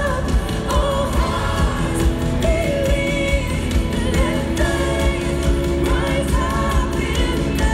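Live worship band and singers performing, heard from the audience in a large arena: long held sung notes over a steady heavy bass beat.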